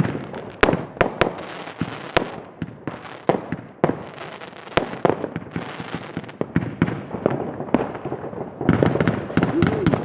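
Fireworks going off at New Year's midnight: many sharp bangs and pops at irregular intervals, coming thicker near the end.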